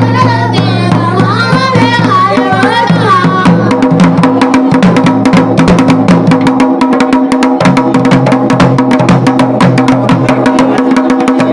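Dhol played with fast, dense strokes over a steady drone, with a wavering melody above it for the first three seconds or so before the drumming takes over.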